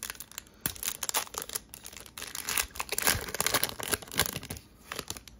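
Foil wrapper of a Donruss Optic football card pack being torn open and crinkled in the hands. It makes an irregular run of crackling and tearing that is loudest about three to four seconds in.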